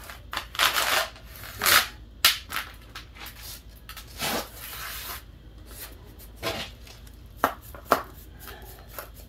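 Aerosol spray-paint can giving several short hissing bursts, one about a second long near the middle, with a few sharp clicks and knocks between them.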